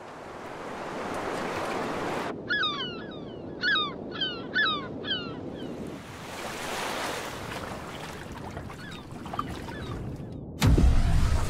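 Sea surf and waves washing, with a run of five or six short, falling bird cries a few seconds in. Near the end a loud, low rumble cuts in suddenly.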